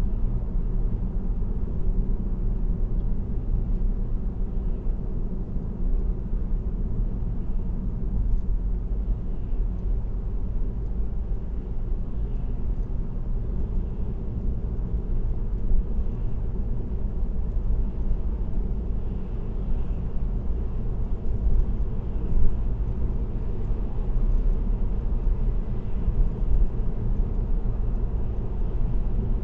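Steady low road rumble from a car cruising at highway speed, tyre and engine noise heard from inside the cabin, with a few faint knocks.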